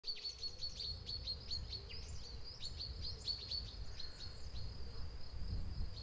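Birds chirping: quick chirps that fall in pitch, several a second, over a thin high steady note, with a low rumble underneath.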